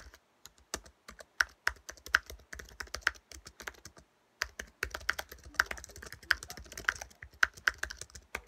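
Fast typing on a low-profile computer keyboard: a quick, uneven run of key clicks, with a brief pause about four seconds in.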